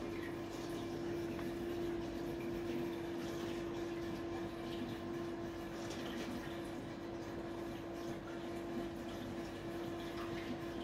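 Aquarium pump running with a steady hum, over a wash of moving water.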